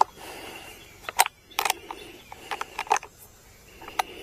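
Irregular metallic clicks and taps, about half a dozen, as the chain adjustment tool is fitted onto the bar nuts of a Badger 40V cordless chainsaw and worked. The nuts are being loosened so the chain, which has gone slack, can be tensioned.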